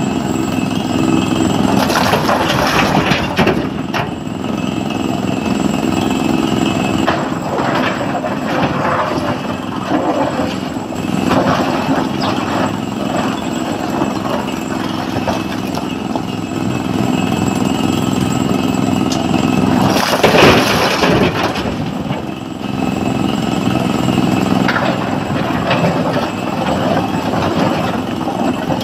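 SANY hydraulic excavator's diesel engine running steadily under load, with repeated loud surges of rock noise as the bucket digs into the stone pile and loose rock falls into the dump truck's steel bed; the loudest surge comes about two-thirds of the way through.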